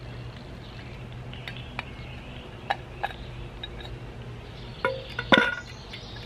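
Rusty cast-iron and metal parts of a disassembled boiler water level sensor clinking and knocking as they are handled and set down: a few light clicks, then two louder metallic knocks near the end, the second ringing briefly.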